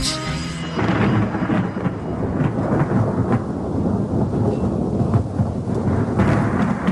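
Steady rain with low rolling thunder, a dense rumbling wash.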